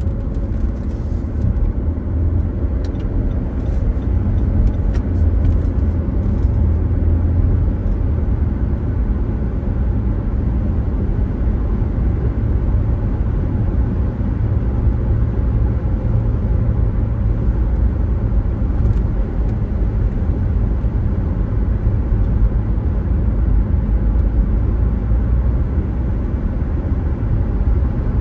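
A car being driven: a steady low rumble of road and engine noise, with a few faint ticks now and then.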